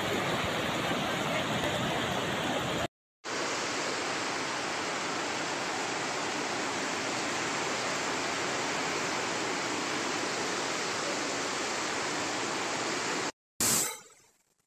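Flash-flood water rushing in a muddy torrent: a steady, even rushing noise. It breaks off briefly about three seconds in and again near the end, then dies away.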